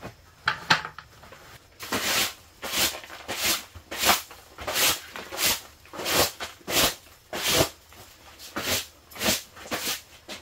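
A broom sweeping a tent's floor covering, a steady series of short scratchy swishes about one and a half per second, after a couple of light knocks near the start.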